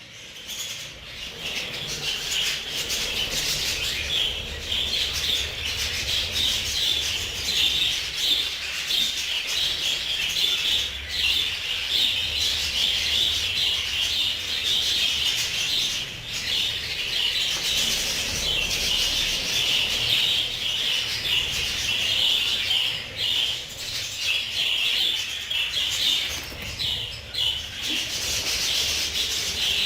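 A flock of budgerigars in a colony aviary chattering and chirping all at once, a steady dense warble of many birds.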